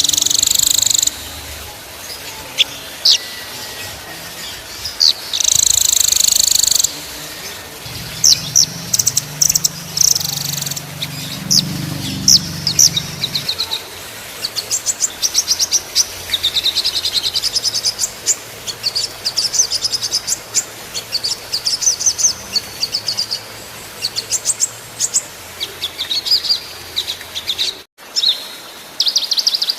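Small songbirds singing in rapid trills and runs of sharp, high chirps, one phrase after another. A brief dropout comes about two seconds before the end.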